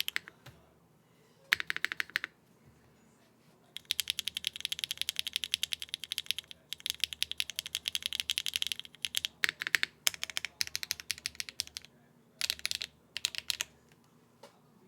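Typing on a TKD Cycle7 mechanical keyboard with HMX Sunset Gleam linear switches, an aluminium plate and no case foam: fast runs of keystrokes in several bursts, the longest lasting about five seconds, separated by brief pauses.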